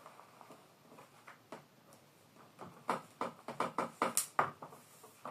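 Latigo leather string being worked through a saddle's seat slot: a quiet start, then a quick run of short scrapes and taps about halfway in as the string and tools are handled.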